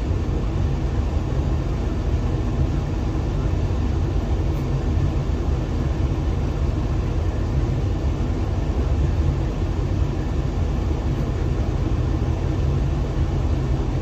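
Steady low engine and road rumble heard from inside a vehicle's cab.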